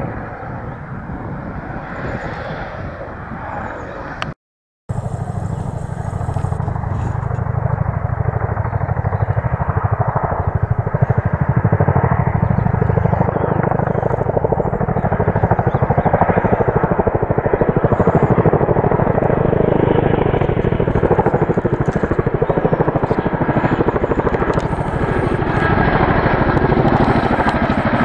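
Chinook tandem-rotor helicopter flying low overhead, its rotors beating rapidly and steadily, growing gradually louder. Before a brief cut about four seconds in, the rotor noise is fainter and more distant.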